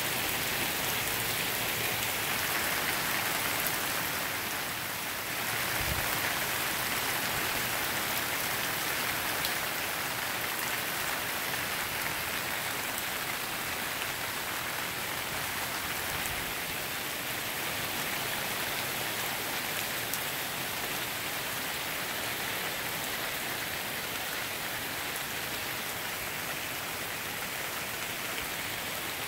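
Heavy rain falling steadily on wet pavement, lawns and trees.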